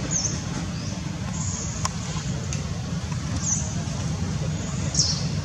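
A steady low rumble like distant road traffic, with short high chirps five or so times and a single click about two seconds in.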